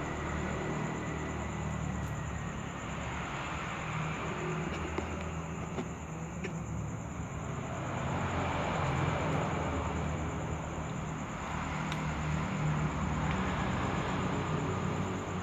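Cats chewing and smacking as they eat soft food from a plate, over a steady low rumble and hiss of background noise that swells a little about halfway through.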